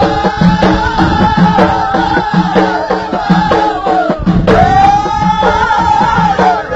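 Ahidous, the Amazigh folk song of the Middle Atlas: voices singing an arching melodic line over a steady beat of bendir frame drums.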